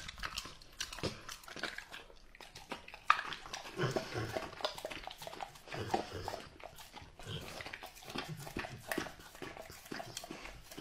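A Rottweiler licking and chewing food off a ceramic plate: quick wet smacks, with tongue and teeth clicking against the plate.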